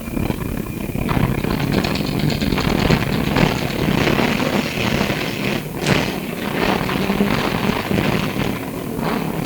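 Ride noise inside a Melbourne SW5 class tram under way: a steady rumble of the running tram with scattered clicks and knocks from the wheels on the rails. It gets louder about a second in, and a brief sharp noise stands out just before six seconds in.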